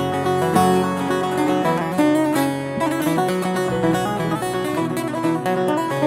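Instrumental music led by a plucked string instrument, quick runs of notes over held lower notes, with no singing.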